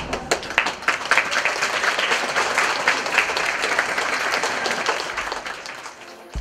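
Audience of schoolchildren applauding, a dense patter of many hands clapping that dies away near the end.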